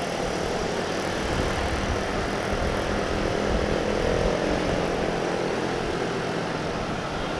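Steady rush of wind and engine noise from a motorcycle being ridden in traffic, picked up by an external action-camera mic. A faint engine drone swells and fades near the middle.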